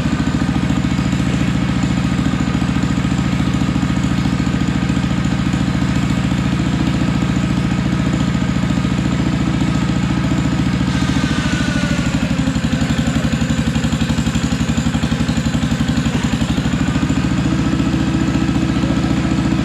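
Kohler K-series single-cylinder engine on a log splitter running steadily, warming up before an oil change.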